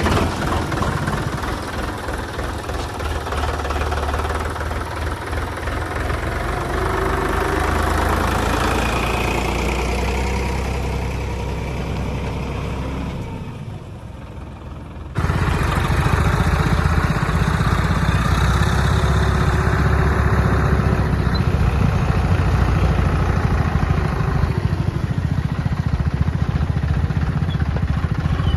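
Sonalika DI 42 RX tractor's diesel engine running steadily alongside a paddy thresher at work. The sound dips around 13 seconds in and comes back abruptly louder about 15 seconds in.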